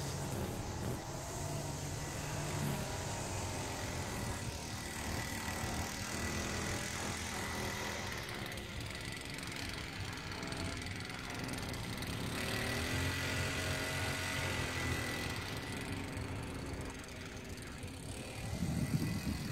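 Small gas engine running steadily at a moderate, wavering pitch, getting louder and rougher about a second before the end.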